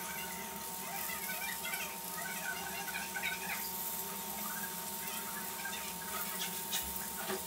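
Semolina-coated lady fish pieces frying gently in coconut oil on medium flame, a low steady sizzle. Short faint high chirps come and go through the first half.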